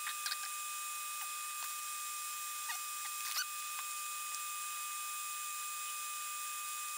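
Steady hiss and faint whine of a small fan drawing solder smoke away from the workbench. A few faint squeaks and ticks in the first few seconds come from hands working wire and the soldering iron at the board.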